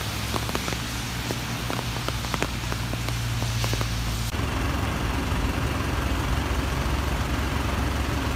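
Vehicle driving in heavy rain on a wet road: a steady low engine and road hum with scattered sharp raindrop ticks. About four seconds in it changes abruptly to a steady hiss of rain with a low rumble.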